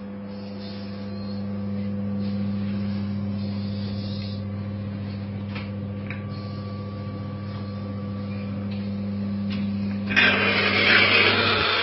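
Steady low electrical hum with a few faint clicks. About ten seconds in, a much louder rushing machine noise starts suddenly.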